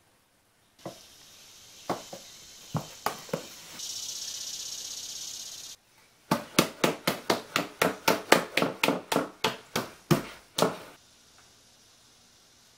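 A quick run of about twenty knocks, four or five a second, like a mallet tapping glued wooden parts together. Before it, a soft hiss with a few clicks, louder for about two seconds before it cuts off.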